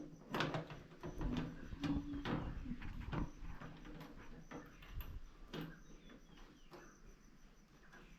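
Irregular knocks, clicks and clatter of hand work with tools and equipment, busiest in the first few seconds.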